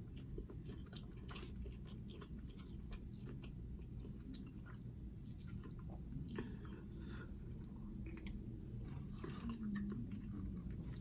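A person chewing food close to the microphone, with soft, irregular wet mouth clicks and smacks, and a brief low hum near the end.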